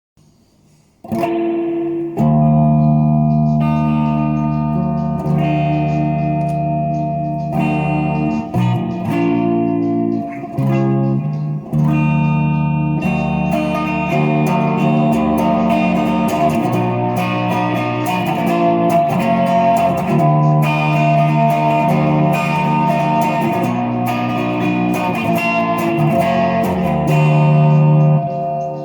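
Epiphone Les Paul SL electric guitar, fitted with a Fender humbucker pickup, playing ringing chords that change every second or two. The playing starts about a second in.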